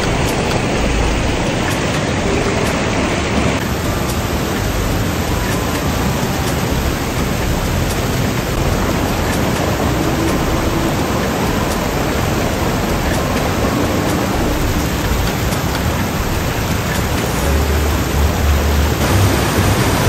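Shallow mountain stream rushing over rocks, a steady loud wash of water. A low rumble swells near the end.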